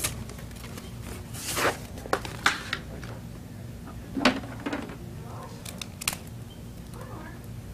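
Scattered clicks and rustles of small objects being handled, a few seconds apart, over a steady low hum.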